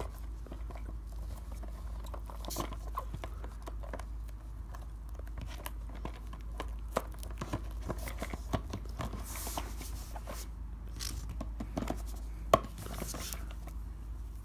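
Plastic seal on a sealed trading-card box being handled and picked at: scattered small clicks and crinkles, with a couple of short rustling tears and one sharper tap near the end. A low steady hum sits underneath.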